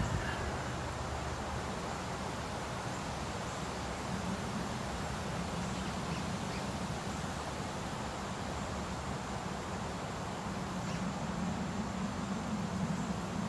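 Steady outdoor ambience: an even hiss of wind in the trees and insects, with a low hum that grows louder near the end.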